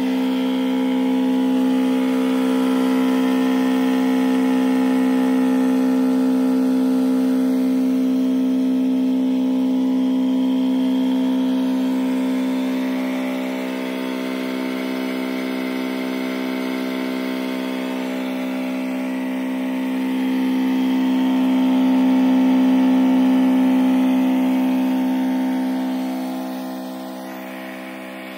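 Battery-powered knapsack sprayer pump running steadily with a constant electric hum as it pushes fungicide solution into a drip irrigation line. It swells a little partway through and fades near the end.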